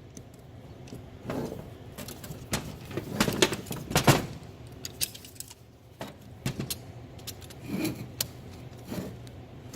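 Irregular metal clinks and knocks of hand tools and small metal pump parts being handled while a DEF pump is taken apart by hand.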